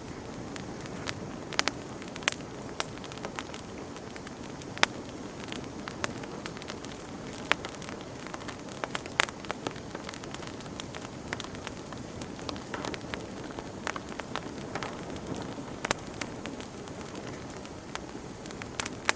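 Campfire burning: a steady low rush of flames with frequent sharp pops and snaps of burning wood at irregular intervals.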